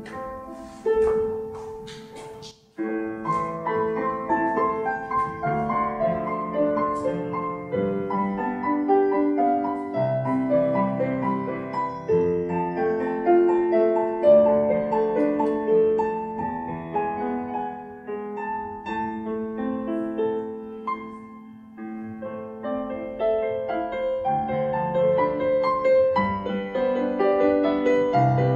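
Digital piano played solo: a slow piece of held notes and chords, starting about three seconds in after a few short clicks.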